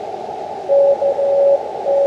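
Morse code (CW) tone from an Elecraft KX2 ham transceiver, one steady pitch keyed on and off in dots and dashes starting under a second in, over steady receiver hiss.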